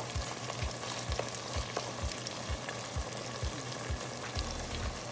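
Pork belly in reduced coconut-milk sauce sizzling and crackling in a nonstick pot while a spatula stirs it. The coconut milk has cooked down until its oil and the pork fat have separated, so the meat is frying in its own rendered fat.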